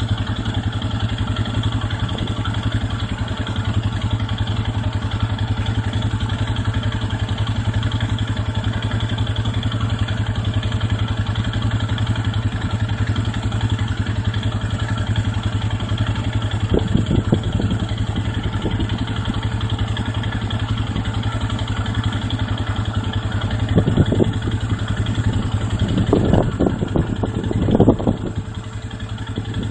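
ATV engine idling steadily with a low, even hum. A few brief louder bursts come through near the end.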